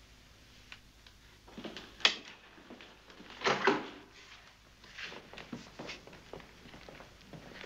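A series of knocks and clattering handling sounds, like objects being moved about. A faint click comes under a second in, sharp knocks follow about two and three and a half seconds in, and smaller clatters run through the second half.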